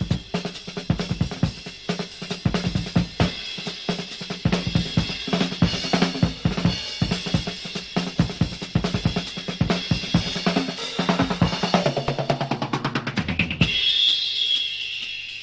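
Drum kit played fast, with rapid strokes across bass drum, snare and cymbals. Near the end the drumming stops and a high ringing tone lingers and fades.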